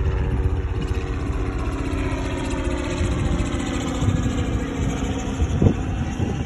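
Wind buffeting the phone's microphone, under a steady engine drone whose pitch slowly falls; a short low bump about five and a half seconds in.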